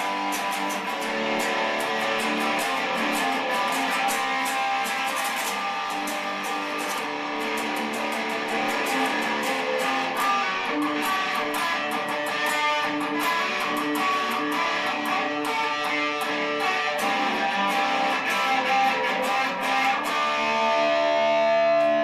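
Guitar played through a song, with quick repeated strummed and picked strokes; about 20 seconds in the playing gives way to long held notes.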